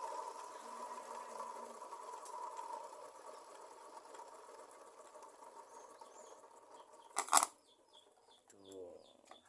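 Homemade coconut grater's motor, a salvaged water-pump motor, running with a steady hum that fades away over about seven seconds, then a single sharp knock about seven seconds in.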